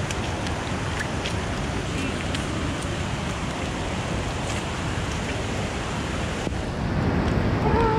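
Steady rush of heavy rain, with scattered sharp taps of raindrops striking the camera.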